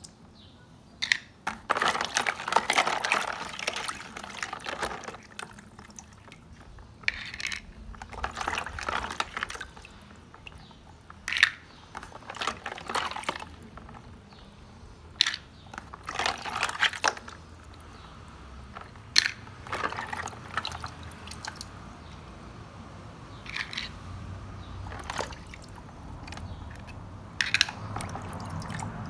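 Water splashing and sloshing in a plastic tub as a hand stirs it and lifts small plastic toy animals out, water dripping back off them, in irregular bursts with a few sharp clicks between.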